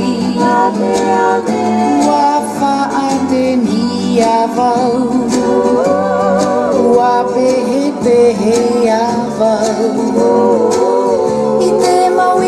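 Tahitian song for ori tahiti dancing: singing over plucked string instruments and a steady beat.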